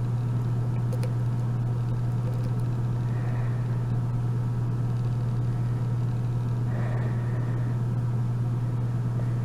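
A steady low hum at an even level, with a faint hiss over it.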